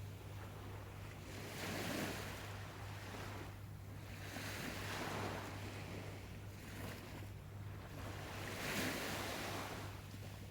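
Sea waves washing onto the shore, the surf swelling and fading three times, a few seconds apart.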